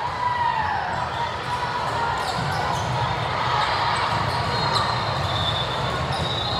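Busy sports-hall ambience of volleyball play: balls being struck and bouncing, many short knocks scattered throughout, under a steady background of voices, echoing in the large hall.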